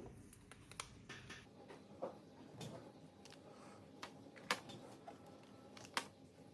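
Quiet handling noise: scattered light clicks and taps of small hard parts, the two loudest about four and a half and six seconds in.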